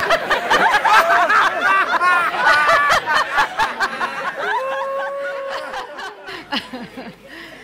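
A room full of people laughing together, many voices overlapping in chuckles and giggles. The laughter thins out and fades over the second half, with one long drawn-out voice about halfway through.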